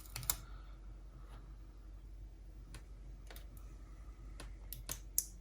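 Scattered faint clicks and light taps, about ten at irregular intervals, from small parts and tools being handled while a Sony MZ-RH1 MiniDisc Walkman is taken apart.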